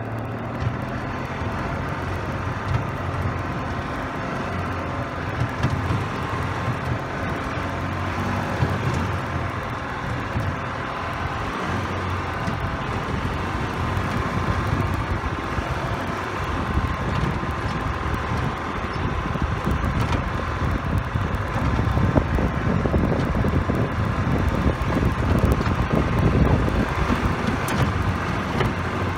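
Golf cart running steadily while driving over rough dirt and grass, with its motor's low hum throughout. Bumping and rattling from the cart grows heavier in the later part as it crosses rougher ground.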